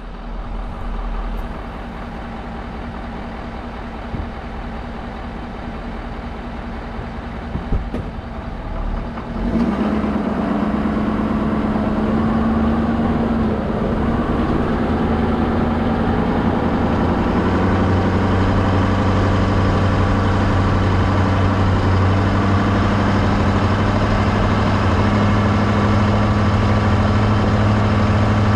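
Truck engine running as the truck drives along, heard from right at the truck's front. About ten seconds in the engine gets louder and settles into a steady pitched drone.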